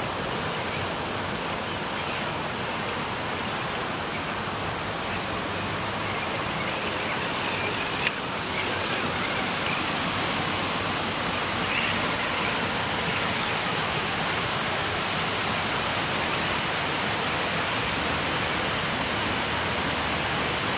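Steady rushing of flowing river water, with one sharp click about eight seconds in.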